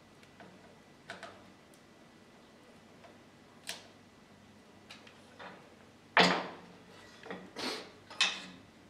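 Scattered light clicks and knocks from small parts and tools being handled on a workbench, with a sharper knock about six seconds in and two short rattling scrapes near the end.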